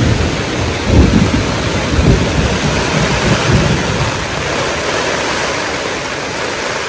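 Steady rushing water of a shallow, rocky river, with irregular low rumbles in the first four seconds, loudest about a second and two seconds in.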